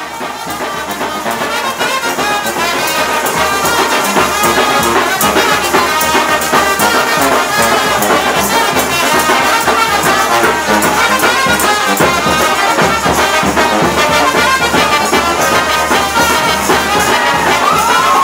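Street brass band playing lively carnival music with tambourine jingles, fading up over the first few seconds. Near the end a rising shout or whoop cuts across the music.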